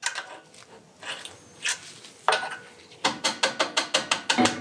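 Socket ratchet wrench clicking rapidly and evenly, about six clicks a second, for the last second and a half while a 10 mm keeper bolt on a tractor loader's pivot pin is turned. Before that, a few separate metal clicks and knocks.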